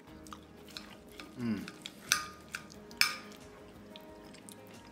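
Table knife and fork clinking and scraping against a ceramic dinner plate while cutting a pork chop, with two sharp clinks about a second apart near the middle, over soft background music.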